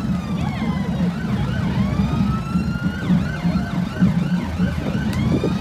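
Sirens wailing, several overlapping tones rising and falling in pitch and warbling quickly for a moment near the middle, over a steady low rumble.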